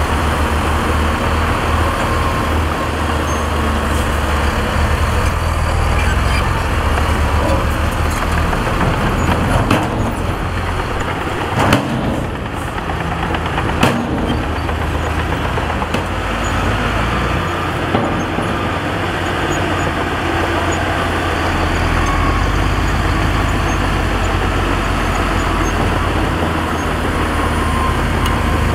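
Heavy diesel construction machinery, dump trucks and a bulldozer, running with a steady low engine drone. Two sharp knocks stand out about halfway through.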